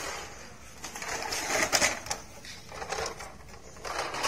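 Plastic toy truck wheels rolling over rough concrete, an uneven scraping rattle with a few clicks that swells twice.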